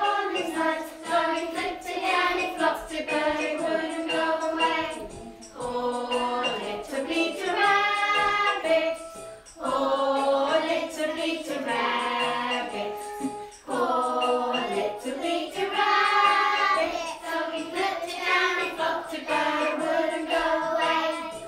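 A group of young children singing a nursery song together in chorus, in phrases of a few seconds each.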